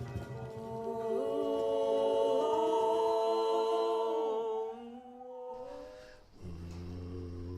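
Unaccompanied voices humming long held notes, with small slides in pitch; near the end a low held note comes in.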